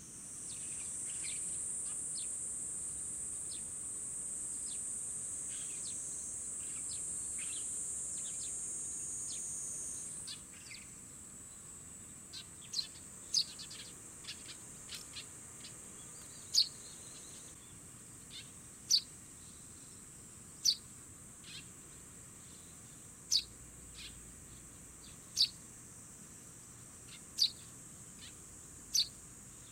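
A fledgling Eurasian tree sparrow giving short, sharp, downward chirps, faint at first and then loud and regular, about one every two seconds over the second half. For the first third a steady high-pitched insect drone is louder than the bird, then carries on faintly underneath.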